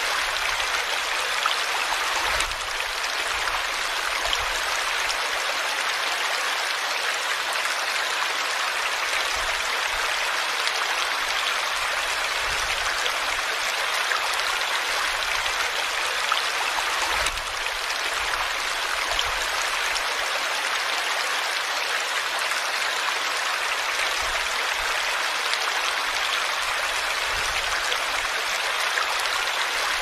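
Small waterfall of water pouring off a rock lip and splashing into a shallow pool, a steady, even rush of splashing water.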